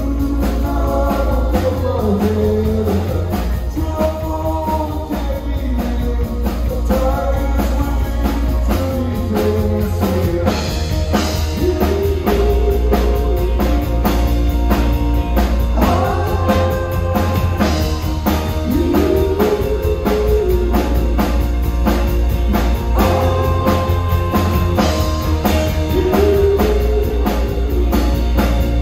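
Live rock band playing: a woman sings the melody over electric guitar, a bass line and a steady drum kit beat.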